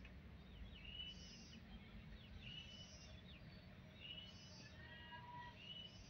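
Faint chirping of small birds: a short high call phrase repeated about every second and a half, over a low background rumble.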